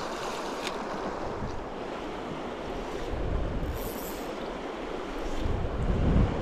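Steady rush of fast-flowing river water, with gusts of wind buffeting the microphone about three seconds in and again near the end.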